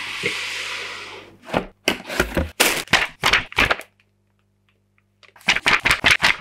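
A steady hiss fading out about a second in, then two quick runs of sharp paper snaps and crackles, about four or five a second, as the pages of a building-instructions booklet are flipped; a pause of about a second separates the runs.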